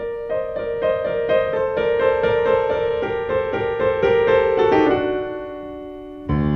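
Background piano music with repeated notes struck about three times a second. The notes fade out near the end, and a new chord comes in just before the end.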